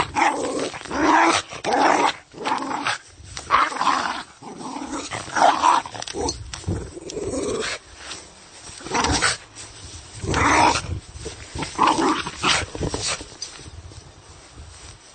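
A dog growling in repeated rough bursts, each about a second long, fading near the end.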